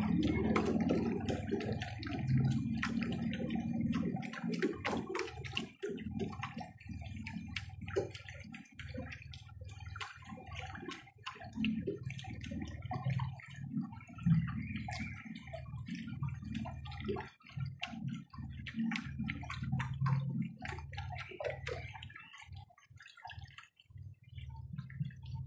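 Water lapping and gurgling against the hull of a small boat moving slowly along a canal, with many small irregular drips and splashes; it grows quieter over the last few seconds.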